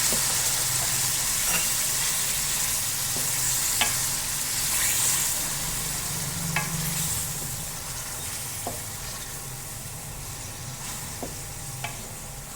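Chicken frying in oil with ginger-garlic paste, sizzling steadily, with a spoon clicking against the pot now and then as it is stirred. The sizzle grows quieter over the second half.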